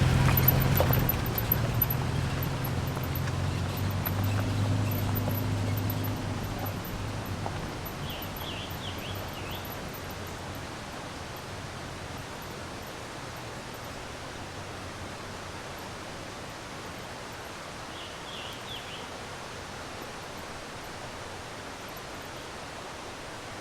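Pickup truck engine running at low revs, fading out over the first several seconds and leaving a steady even rushing noise. Short high chirps, like bird calls, come twice in the middle.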